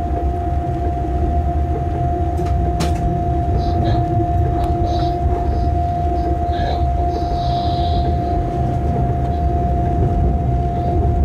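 Locomotive running light, heard inside its cab: a steady low rumble from the wheels on the track under a constant whine, with a single sharp click about three seconds in.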